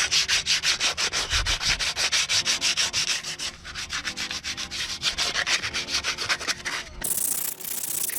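Sandpaper being rubbed by hand on a steel exhaust pipe, fast even back-and-forth strokes of about six a second that grow softer partway through, scuffing the surface so paint will stick. A steady hiss takes over near the end.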